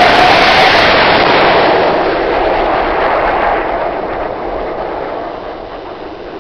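Cartoon sound effect: a loud wash of rushing noise that fades away steadily over several seconds.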